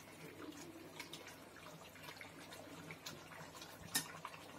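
Pot of biryani rice and chicken gravy simmering on low heat, faint bubbling with many small pops, and one sharp metal clink of the ladle against the aluminium pot about four seconds in.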